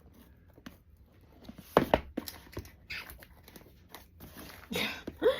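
Packaging being pulled and torn at by hand in a series of irregular rips and crinkles, with the loudest tear about two seconds in, as the package refuses to open.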